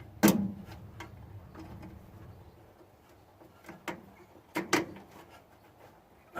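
A few sharp clicks and knocks of wires and terminals being handled while they are reconnected to a starter solenoid: a loud one just after the start, then a cluster about four to five seconds in.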